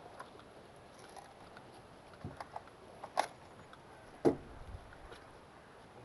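A few scattered short, sharp knocks and clicks over a quiet background; the loudest comes about four seconds in.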